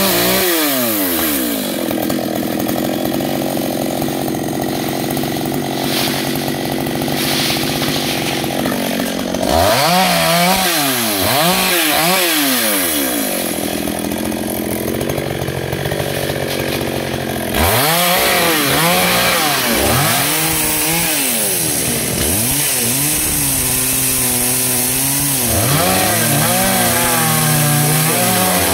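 Gasoline chainsaw running while cutting through branches. It runs fairly steadily for the first several seconds. From about nine seconds in, its engine note rises and falls again and again as the throttle is squeezed and released.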